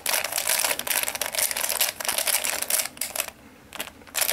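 Square-1 puzzle being turned quickly by hand: rapid plastic clacking and rattling of its layers and middle slice. The turning stops briefly about three seconds in, with a couple of clicks, then a short burst near the end.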